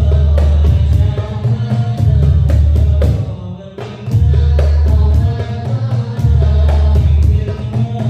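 Hadroh ensemble playing frame drums and a deep bass drum in a steady rhythm, with voices singing over them, heard through an amplified sound system during a sound check. The music drops back briefly about three seconds in, then comes back at full strength.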